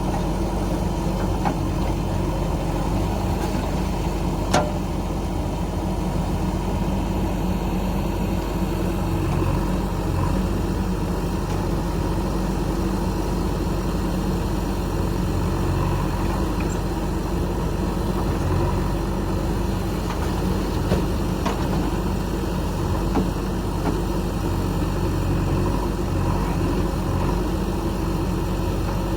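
Heavy diesel engine of earthmoving machinery running steadily, with one brief sharp knock about four and a half seconds in.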